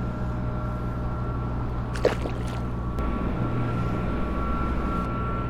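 Steady low mechanical hum with a few constant tones, like machinery or an engine running without change, and a short clicking rattle about two seconds in.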